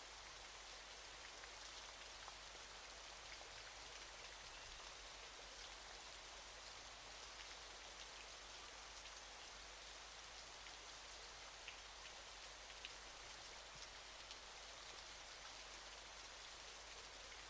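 Faint, steady waterfall noise: an even hiss of falling water that never changes, with scattered faint drop-like ticks.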